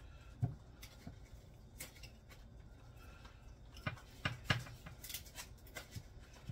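Scattered light taps and knocks of raw chicken wings being rolled by hand in a bowl of dry spice rub, with a small bunch of taps around four to five seconds in.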